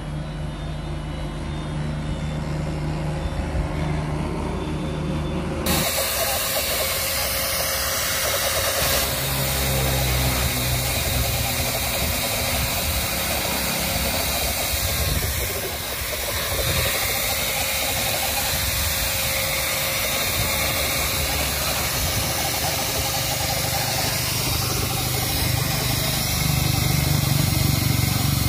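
A motor running with a steady low hum; from about six seconds in, a spray gun hisses steadily over it as lacquer coating is sprayed onto concrete paver tiles.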